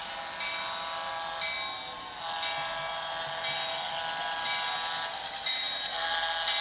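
Sound of a model diesel locomotive on a layout: a sustained horn-like chord with a ringing strike repeating about once a second, like a locomotive bell.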